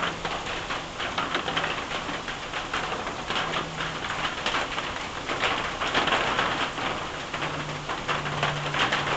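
Steady rain falling on an asphalt-shingle roof, a dense patter of drops hitting and splashing without a break.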